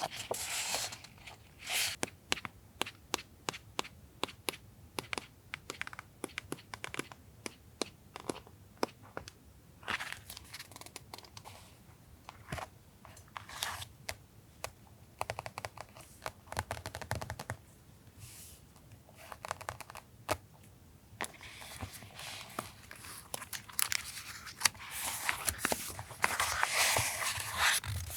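Paper and plastic-wrapped stationery being handled: rustling and crinkling with many light taps and clicks, and a longer stretch of crinkling in the last few seconds.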